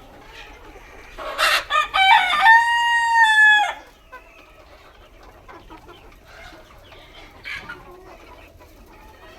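A desi (gavran) rooster crows once, starting about a second in: a rough start and then a long, held note that drops off at the end. Hens cluck softly around it.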